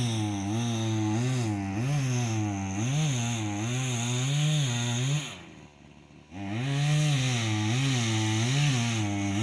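Chainsaw running, its engine pitch rising and falling again and again as it is throttled through a cut. About five seconds in the sound drops away for about a second, then comes back at the same pitch.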